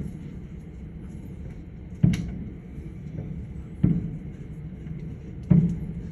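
Fireworks shells bursting in loud booming bangs, four in all, roughly every two seconds, each with a short echoing tail, over a steady low rumble.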